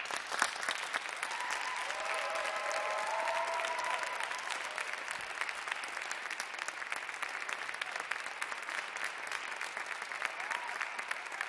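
Audience applauding, starting suddenly and holding steady, with a few voices calling out in cheers about two seconds in.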